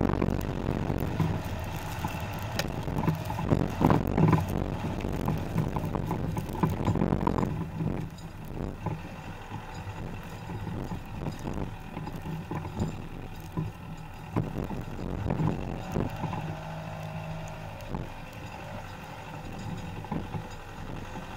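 Skoda Octavia TDI front-wheel-drive hatchback driving over a sandy, bumpy forest track, heard close to the front wheel: steady tyre and road rumble with scattered thumps as the wheel and suspension go over bumps. It is louder and rougher for the first seven or eight seconds, then quieter.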